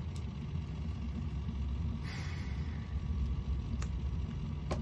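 Steady low background rumble, with a short hiss about two seconds in and a faint click or two near the end.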